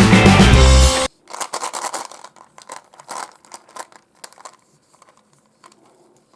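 Music that cuts off suddenly about a second in, followed by irregular crinkling and tearing of a wrapper as packaging is opened, fading out toward the end.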